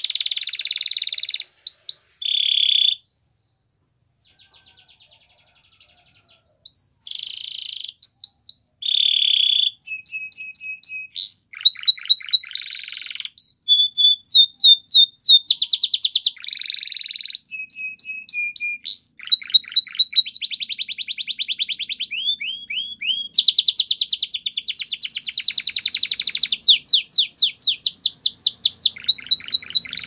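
White domestic canary singing a long, varied song of high, rapid trills and fast runs of sweeping notes. A pause of a few seconds near the start is broken only by a couple of short notes.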